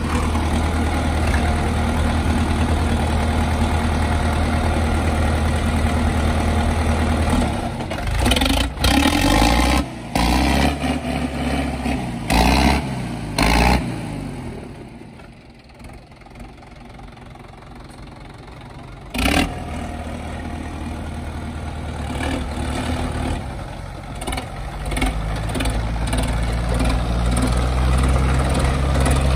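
Tractor diesel engine idling steadily, then revved up and down several times with some sharp knocks. It dies down about halfway, and after a sharp knock it runs again, its pitch rising near the end as it revs.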